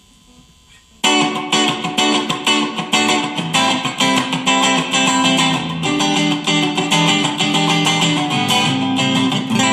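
Electric guitar, a Chinese copy of a Fender Stratocaster on its middle pickup, played through a Fender Mustang amp set for a clean Twin Reverb-style tone. A fast run of picked notes starts about a second in and ends on a ringing chord.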